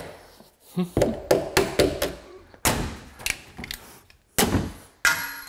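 Hinge pins being knocked up and out of a pre-hung door's metal butt hinges: several sharp metal knocks and thunks at uneven intervals, one every second or so.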